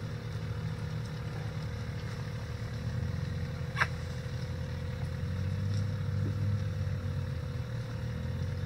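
Steady low motor hum with a thin steady whine above it, and one sharp click about four seconds in.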